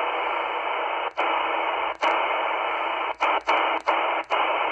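XHDATA D-808 shortwave receiver in upper sideband, its speaker giving a steady hiss of band noise on the 20-metre ham band with no station tuned in. The hiss cuts out briefly with a click about six times as the tuning steps up a kilohertz at a time.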